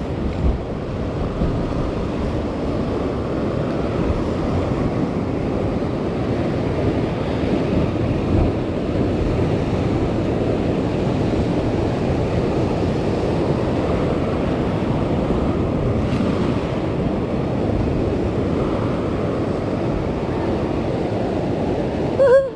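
Sea waves washing on a rocky shore in a steady low rush, with wind buffeting the microphone.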